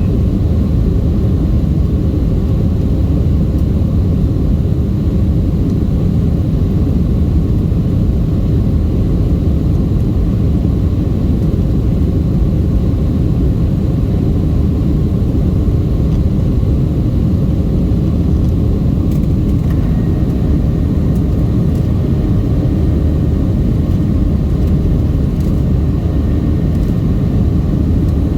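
Steady loud rumble of a Boeing 737-700's CFM56-7B jet engines and airflow heard inside the passenger cabin during the climb after takeoff, with the energy low in pitch. A faint, thin high tone joins about two-thirds of the way through.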